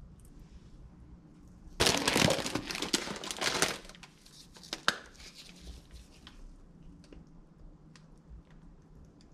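Thin plastic bag of shredded lettuce crinkling for about two seconds as it is handled, followed by a single sharp click a little later.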